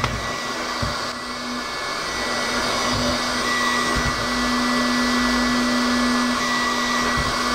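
Electric heat gun running steadily: a constant rush of blown air with a motor hum and a faint high whine. It is heating the inner race of a crankshaft bearing in a Vittorazi Moster crankcase half so the case will slide over the crankshaft.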